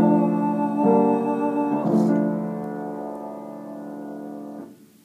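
Piano playing the closing chords of a song accompaniment: three chords about a second apart, the last one held and dying away until it stops just before the end.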